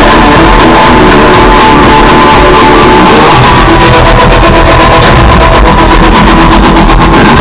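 Music played at very high volume through a custom car audio system with door-mounted woofers and tweeters, the sound held steadily at the recording's maximum level.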